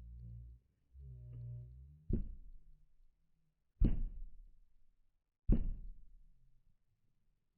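Three sharp knocks about a second and a half apart, each dying away quickly: blows from the restored hammer. A low hum sounds twice in the first two seconds, before the knocks.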